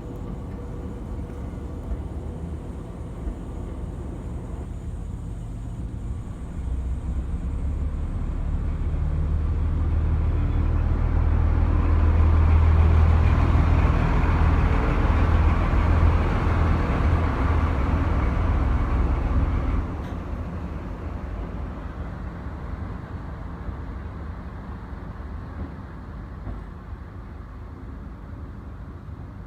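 Diesel locomotive engine running, its low drone growing louder for several seconds as it works, then dropping off sharply about two-thirds of the way through.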